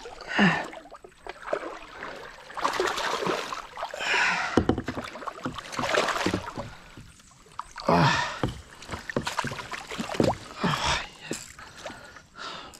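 Hooked largemouth bass thrashing at the surface beside a kayak, throwing up water in repeated bursts of splashing.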